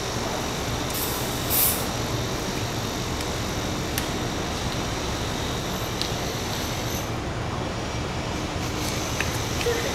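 Steady outdoor background noise, a constant rumble and hiss, with a short loud hiss about a second and a half in and a sharp click a few seconds later.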